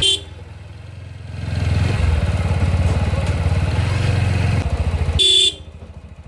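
A motorbike's small engine running with a low, even pulse, growing louder about a second and a half in and dropping back near the end. A horn beeps briefly at the very start and again about five seconds in.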